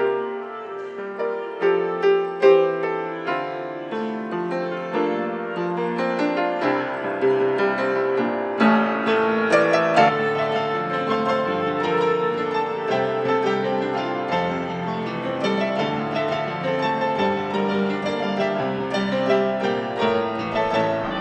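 Upright piano played solo: a flowing melody over chords. The playing grows fuller and busier about eight seconds in.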